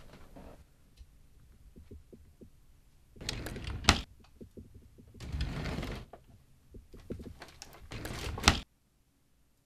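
A desk drawer sliding open and shut, with rummaging inside it between the two. A sharp knock comes about four seconds in and another near the end, and then the sound cuts off suddenly.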